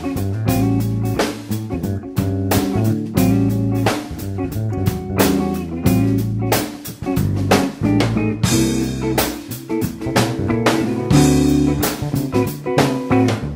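Background music with guitar and a drum kit playing a steady beat.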